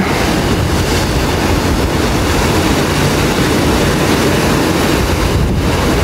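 Stormy Black Sea surf breaking against rocks and concrete slabs in a steady rush, with wind rumbling on the microphone.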